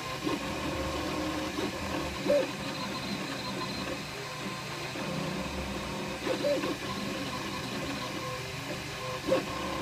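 Flashforge Dreamer 3D printer running a fine 80-micron print: a steady hum of fans and stepper motors, with three brief louder motor moves a few seconds apart.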